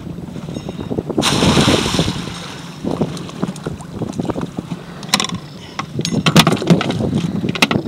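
A lobster trap is pushed over a boat's bow and hits the water with a loud splash about a second in, then its line runs out over the rail with a run of knocks and clatters near the end.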